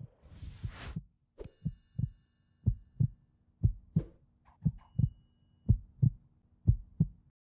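Logo-intro heartbeat sound effect: a swelling whoosh that breaks off after about a second, then paired low thumps like a heartbeat's lub-dub, about one pair a second. A faint bright chime rings twice, and the sound cuts off abruptly near the end.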